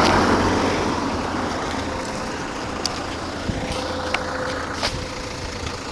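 A road vehicle passing, its noise fading away over the first couple of seconds, then quieter traffic background with a few light clicks.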